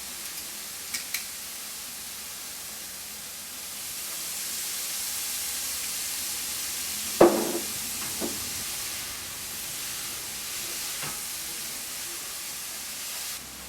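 Cauliflower rice stir-frying in a hot pan, sizzling steadily; the sizzle swells a few seconds in, just after soy sauce goes into the pan. A sharp knock of a utensil against the pan about halfway, with a few lighter knocks after it.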